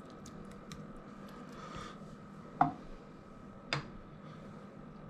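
A kitchen spoon spreading cooked peppers in a glass casserole dish with a few soft taps, then two sharp clinks of the spoon about a second apart, a little after halfway. A faint steady hum runs underneath.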